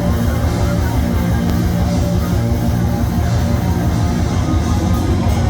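Heavy metal band playing live and loud: distorted guitars and bass over fast, driving drums.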